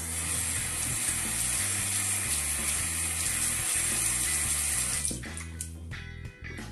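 A bathroom sink tap runs, with water splashing onto hands rinsed under it, and is shut off about five seconds in. Background music with a steady bass line plays underneath.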